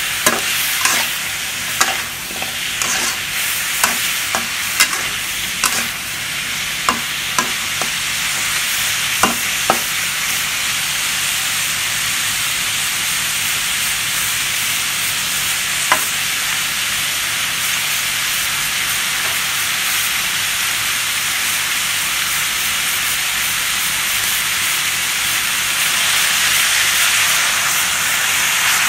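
Pork belly, squash and onion sizzling in a wok, with a spatula clicking and scraping against the pan during stirring in the first ten seconds, then steady frying.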